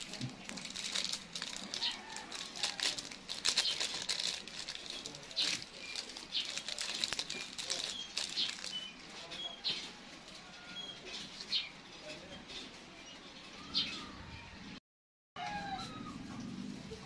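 Whole black peppercorns dropped by hand onto raw chicken feet and ginger in a metal pot: a dense run of small clicks and taps that thins out after about eight seconds.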